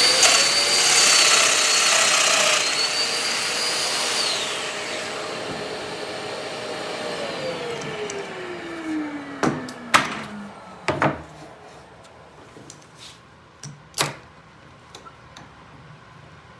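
Domino joiner motor running with a high whine, switched off about four seconds in and spinning down, its pitch falling slowly over several seconds. A few sharp knocks follow in the second half.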